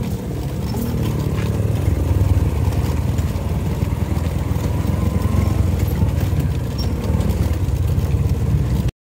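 Bajaj CT 100's single-cylinder four-stroke engine running as the motorcycle rides along a rough dirt track, a steady low putter. The sound cuts off suddenly near the end.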